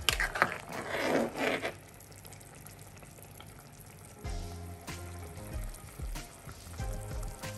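Metal spoon stirring a pot of thin, simmering tomato curry, the liquid sloshing and bubbling, with a couple of clicks of spoon on pot at the start. Soft background music comes in more clearly about four seconds in.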